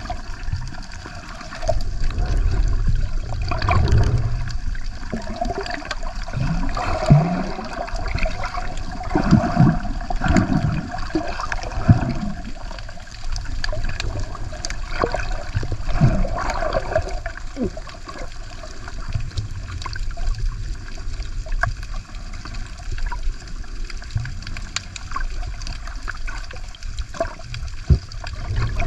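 Water sloshing and gurgling around an underwater action camera, muffled, with bursts of bubbling and small knocks on the housing, busiest in the first half.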